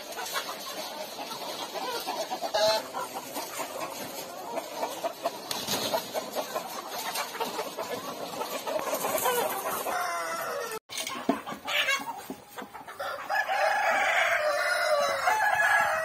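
A flock of caged Aseel country chickens clucking and calling over one another. After a sudden cut about eleven seconds in, a rooster crows one long crow near the end.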